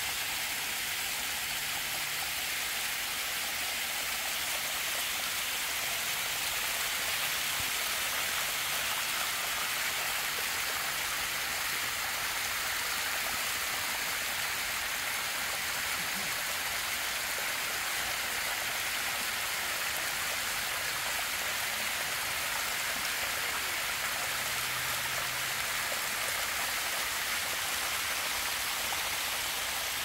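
Small waterfall: water sheeting down a steep rock face, a steady rushing hiss.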